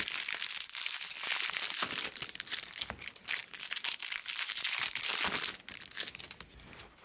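Plastic card-pack wrappers crinkling and tearing as baseball card packs are opened by hand, a dense crackle that dies down near the end.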